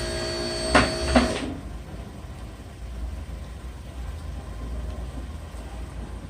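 A small motor whining steadily, with a couple of sharp clicks, stops suddenly about a second and a half in, leaving only a faint low rumble.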